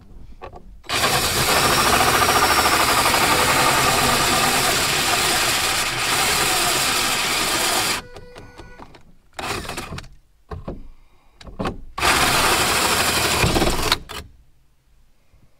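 Cordless drill with a hole saw cutting through the plastic overhead console bracket and headliner of a car's roof. It runs steadily for about seven seconds, then in a few short bursts, then in another run of about two seconds near the end.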